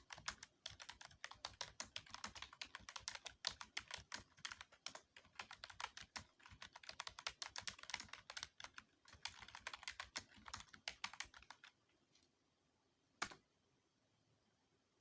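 Fast typing on a computer keyboard, a quick run of keystrokes with short pauses, stopping about eleven seconds in; one more single click a couple of seconds later.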